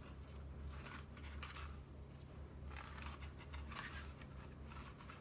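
A stack of old postcards being leafed through by hand, card sliding over card in short, soft scrapes every second or so, over a steady low hum.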